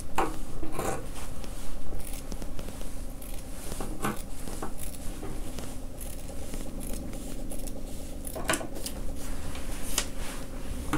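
Scissors cutting through cloth in a run of uneven snips.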